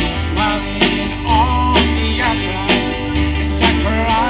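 Live gospel band music: acoustic guitar strummed over bass and drums, with a beat about twice a second and a sliding melody line on top.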